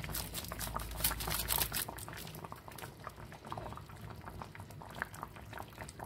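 Vegetable broth for couscous boiling in a steel pot: a steady bubbling with many small, irregular pops.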